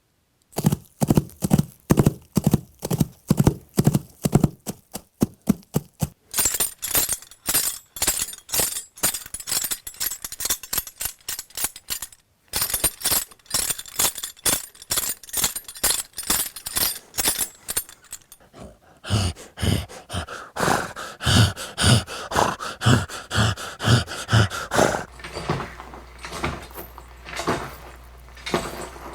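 A long run of rhythmic knocks and clatters: first an even beat of low knocks about two and a half times a second, then quicker, brighter clicking with a short break in the middle, and near the end heavier low thumps over a steady hum.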